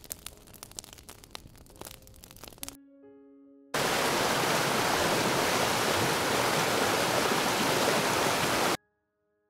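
Waterfall rushing: a loud, steady, even roar of falling water for about five seconds, starting and stopping abruptly. Before it come a few seconds of faint crackling and popping, like a fire, with a few quiet held musical notes.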